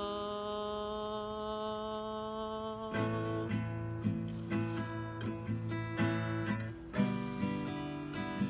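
Acoustic guitar: a chord rings out, then about three seconds in a steady strumming pattern starts at roughly three strokes a second, with a brief break near the end.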